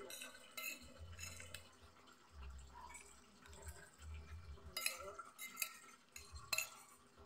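Metal fork and spoon clinking and scraping against a glass plate while scooping up cooked vegetables, in scattered sharp clinks, a few near the start and more about five seconds in, with chewing in between.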